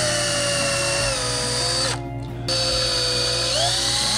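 DeWalt cordless drill boring into the wooden barn door, its motor whining steadily, stopping for about half a second around two seconds in, then running again. Its pitch sags as the bit loads up and climbs again near the end.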